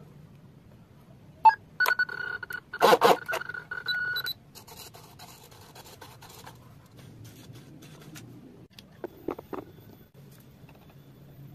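RC boat's electronic speed controller giving a steady electronic beep for about two and a half seconds after a sharp click of a connector, with a clatter of handling the plastic hull over the middle of the beep. A few small taps follow near the end.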